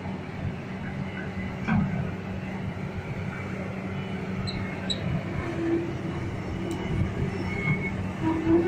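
Diesel engine of a Lonking crawler excavator running steadily, with a higher whine coming and going from about five seconds in. The machine is running again after standing unused for many years.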